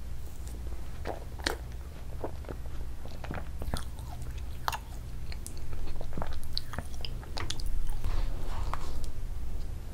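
Close-miked eating of ice cream: wet mouth sounds and chewing with many short sharp clicks, busier and louder in the second half, over a steady low hum.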